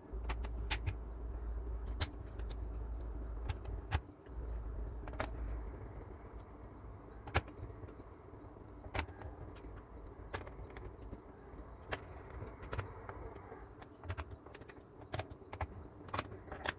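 Small, sharp clicks and taps of a screwdriver working the screws into a laptop's plastic back cover, scattered irregularly, with a low rumble of handling for the first five seconds or so.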